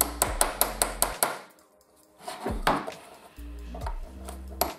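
Small hammer tapping on the plastic housing of a reassembled ABS control unit: a quick run of light, sharp taps, a pause, a few more, then another run near the end, over background music.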